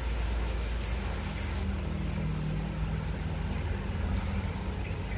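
A steady low engine rumble, like a motor vehicle idling.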